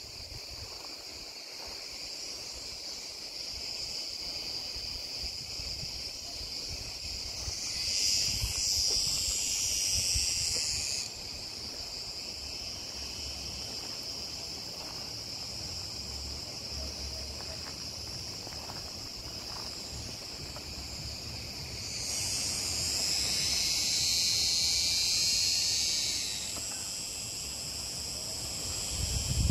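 A chorus of cicadas buzzing steadily at a high pitch, swelling louder twice for a few seconds each, about eight seconds in and again about twenty-two seconds in.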